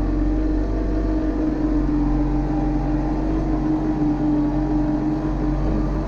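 Tractor engine running steadily, a constant drone with no change in speed.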